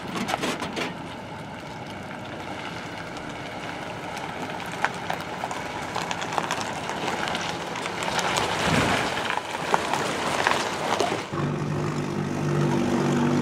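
Steady rushing noise with scattered sharp clicks and knocks, then about eleven seconds in a boat's outboard motor takes over, running steadily underway.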